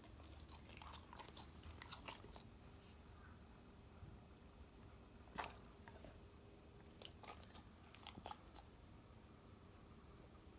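Near silence with faint, scattered wet clicks and smacks from an elderly Labrador retriever's mouth and nose, with one sharper click about five seconds in.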